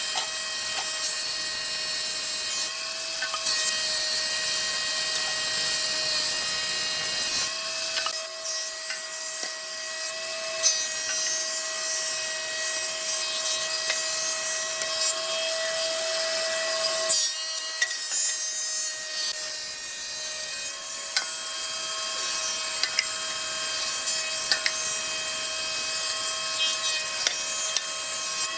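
Electric power tool working wood: a steady motor whine over a rasping cutting or sanding noise, with a few small knocks.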